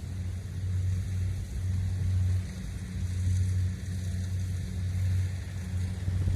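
Kubota DC70 combine harvester's diesel engine running steadily under harvesting load, a low drone that swells and eases slightly.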